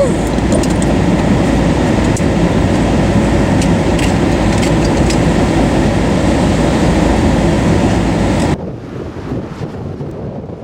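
Loud, steady rush of strong wind near a tornado, the train-like noise of the storm, with a few scattered ticks. It drops abruptly to quieter, duller wind noise about eight and a half seconds in.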